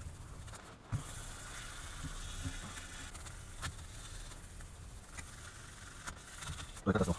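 Hand sanding a steel axe head with fine P800 waterproof sandpaper: quiet rubbing strokes of the paper across the metal, with a few small knocks and a louder knock near the end.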